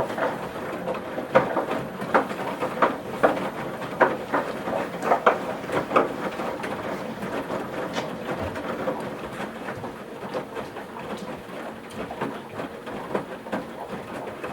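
Washing machine drum turning mid-wash, the laundry and water sloshing and dropping with irregular soft knocks, about one or two a second, over a steady hum. The knocks are strongest in the first half and fainter after about six seconds.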